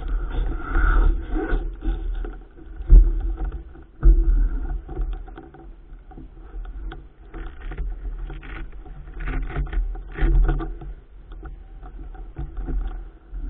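Wind buffeting the microphone of a mountain bike on the move, with irregular rattles and knocks from the bike on rough ground.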